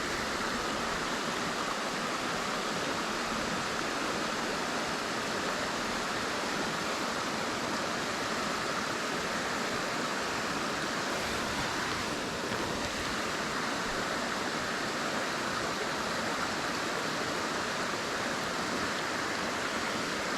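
Creek water running over rocks: a steady, even rushing that does not change.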